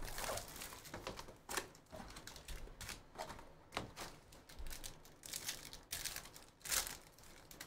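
Handling of a cardboard trading-card box and its wrapped card packs: irregular taps, rustles and crinkles, with a pack wrapper being torn open near the end.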